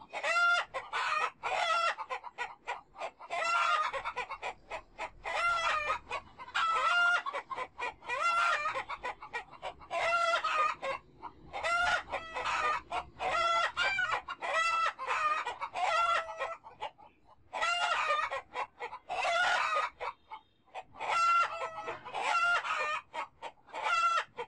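Chickens calling over and over, loud pitched clucks and calls about once a second.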